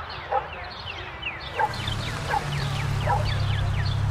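Instrumental intro of a song: a run of short, high, falling notes with a few light accented hits. A steady low bass comes in about a second and a half in.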